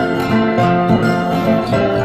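Background music: a melody of pitched notes that change a few times a second.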